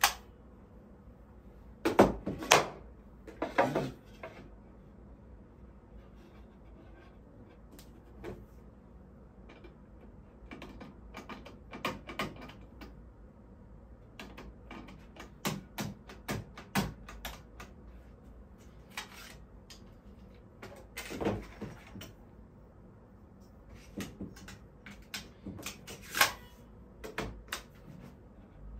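Cordless brad nailer driving brads into thin plywood panels, a sharp snap with each shot, mixed with the knocks of the panels being pushed and shifted on the bench. The loudest hits come in a cluster about two to four seconds in and again a few times in the second half.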